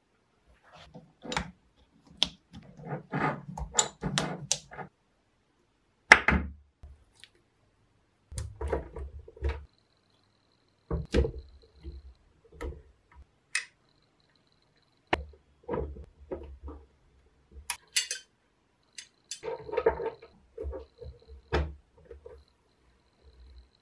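Steel chisels and tool bits clicking and knocking as they are pressed into spring clips and set into a painted sheet-metal tool case, with short scrapes between the knocks. The knocks come in scattered clusters, busiest near the start and again about twenty seconds in.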